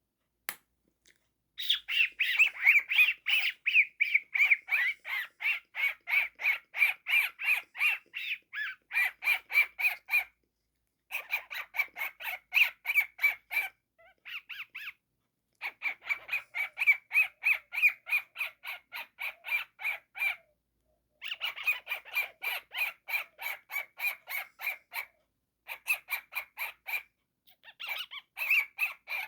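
Cockatiel calling in fast strings of short, repeated squawky chirps, several a second, in runs of a few seconds broken by brief pauses.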